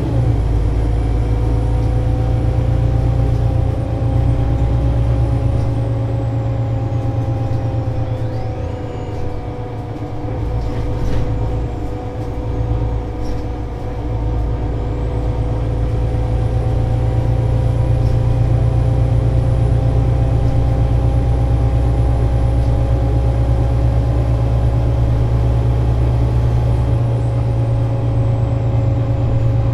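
Solaris Urbino 18 IV articulated city bus's DAF diesel engine idling at a standstill: a steady, loud low drone with even whining tones over it. A faint high whistle drops out for several seconds in the middle.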